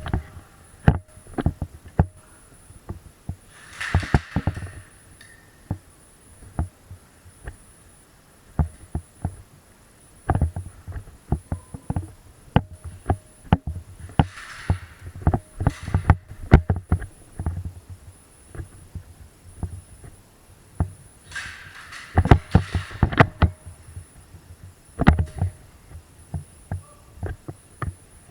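Irregular knocks, clicks and dull thumps, with short bursts of rustling noise three times.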